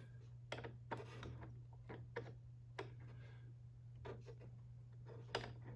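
A handful of light, sharp clicks and taps at irregular intervals from a battery clock movement being handled and adjusted by hand.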